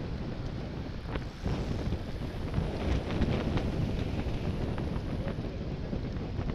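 Steady wind rushing over the microphone of a camera riding on a road bike at speed, with scattered light clicks and ticks.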